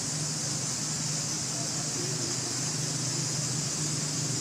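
Steady outdoor background noise: a continuous high-pitched hiss over a low, even hum, with no distinct events standing out.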